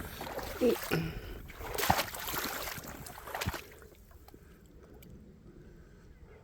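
Water sloshing and splashing with a few knocks, as steps go through shallow creek water over slick rocks. It dies away after about three and a half seconds, leaving only a faint creek background.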